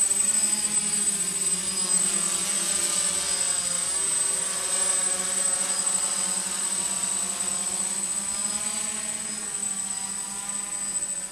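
DJI F550 hexacopter's six motors and propellers buzzing in flight overhead, the pitch pattern shifting as it moves. It grows slowly fainter toward the end as it flies off.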